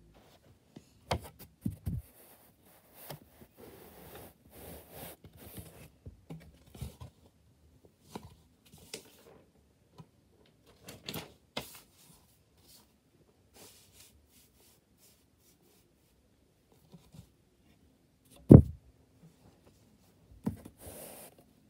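Scattered handling noises: clicks, rustles and light knocks with quiet gaps between them, then one much louder thump about eighteen seconds in.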